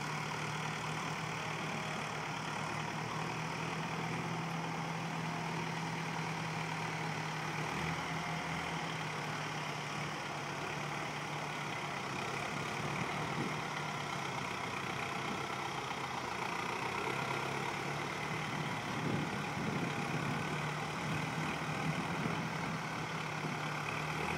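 Tractor-driven Toyo Noki TOP-1 potato harvester working: a steady engine drone with the machine's mechanical running noise over it, the engine note dipping slightly a couple of times.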